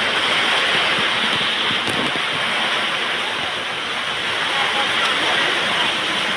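Heavy rain falling steadily, with wind, as a storm comes in.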